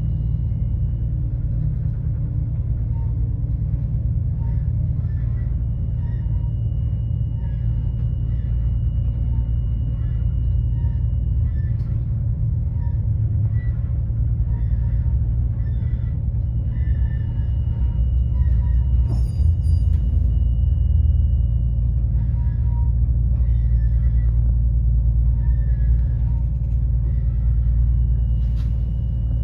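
Steady low rumble of a Class 221 Super Voyager diesel-electric train running, heard from inside by the vestibule door, growing a little heavier about two-thirds of the way through. A brief faint high rattle comes around the same point.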